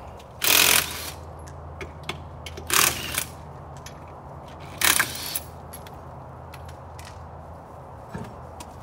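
A power tool cutting into car body metal in three short bursts: about half a second in, near three seconds and near five seconds, over a steady low background hum.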